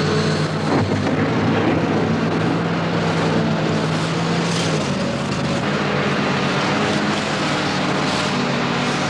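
Tracked hydraulic excavator's diesel engine running steadily under load as its toothed bucket digs through river ice; the engine note changes pitch about five seconds in.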